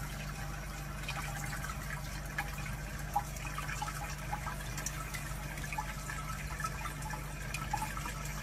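Thin stream of water from a tap trickling and dripping onto a cat's head, with small splashes, over a steady low hum.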